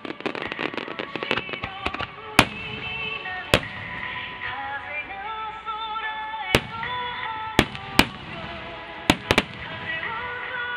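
Aerial firework shells bursting: a dense crackling run of sharp bangs in the first couple of seconds, then about seven single booms spaced a second or so apart. Music plays steadily underneath.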